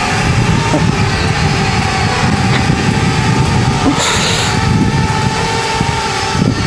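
Parrot Bebop 2 quadcopters hovering close by, their propellers giving a steady, slightly wavering whine over a rough low rumble of wind on the microphone. A short hiss comes about four seconds in.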